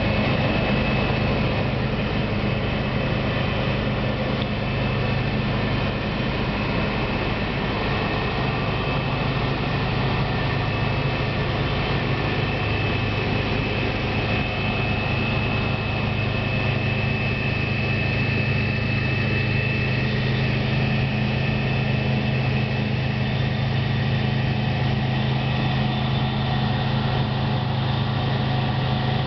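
New Holland CX780 combine harvester running steadily while harvesting wheat: a low, even engine drone with a thin high whine over it.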